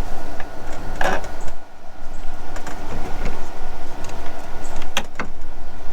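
Steady mechanical hum, with a few clicks and clatters as parts or tools are handled: one about a second in and a sharper pair near the end.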